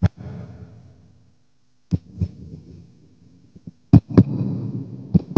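Handling noise on a live handheld dynamic microphone heard through the mixer: about six dull knocks, one at the start, a pair around two seconds, a pair around four seconds and one near the end. Each leaves a low rumble that fades within about a second.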